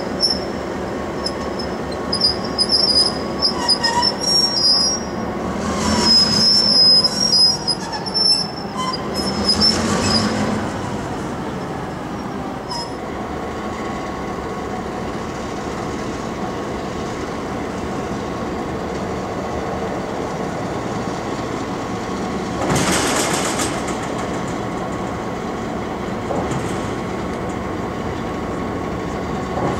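Steel wheels of a diesel locomotive squealing and screeching on rail for the first ten seconds or so. After that, diesel locomotive engines idle steadily, with a brief burst of hiss about three quarters of the way through.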